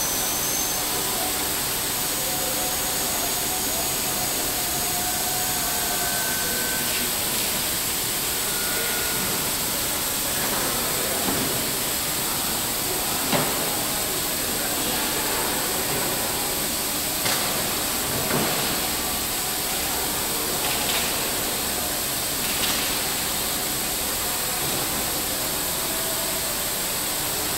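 Steady factory-floor noise: a loud, even hiss with a few faint tones in it. Scattered clunks and knocks sound through it, the loudest about 13 and 18 seconds in.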